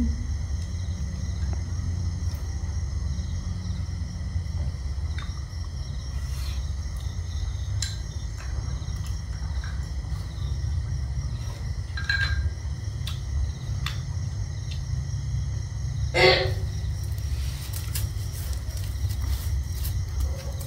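Quiet meal sounds: occasional light clicks of chopsticks against bowls, over a steady low rumble and faint steady insect chirring. A single louder clatter comes about sixteen seconds in.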